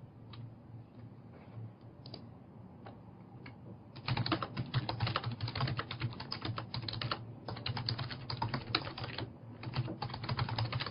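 Typing on a computer keyboard: a few scattered key presses, then from about four seconds in, fast continuous typing with a couple of short breaks. A low steady hum sits underneath.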